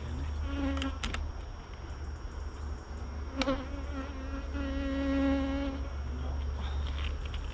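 Honey bees buzzing around an opened hive as the brood box is lifted off, with single bees flying close by in buzzes that come and go, the longest past the middle. A single sharp knock a little before the middle.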